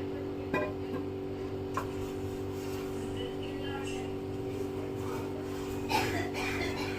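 A few light knocks and clinks of kitchen utensils and a steamer tray being handled, over a steady hum.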